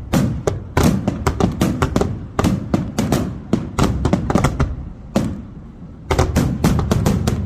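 Fireworks bursting in rapid succession: many sharp bangs over a deep, continuous rumble. The barrage lets up for about a second some five seconds in, then picks up again.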